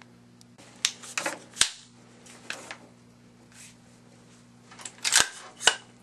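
Sharp metallic clacks of an AR-15's action being worked by hand, its Badger Ordnance ambidextrous charging handle pulled back and released. The clacks come in two bursts, one about a second in and one near the end.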